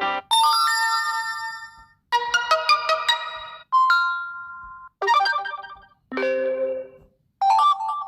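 A run of about six short stock Infinix Note 7 phone tones played one after another. Each is a brief melodic chime lasting about a second, separated by short silent gaps.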